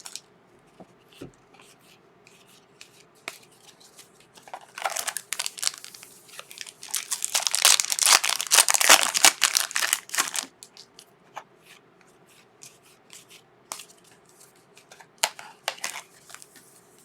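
Trading card pack wrappers being torn open and crinkled by hand, in two longer stretches about five seconds in and from about seven to ten seconds, with light clicks and rustles of cards being handled in between.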